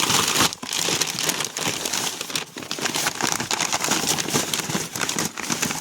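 Packing paper crumpling and rustling as hands dig through a bin of wrapped model trains.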